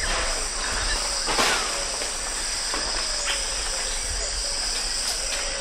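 Capuchin monkeys feeding in rainforest, with a few sharp cracks and snaps from their feeding, the loudest about a second and a half in, and short falling calls, over a steady high-pitched drone of insects.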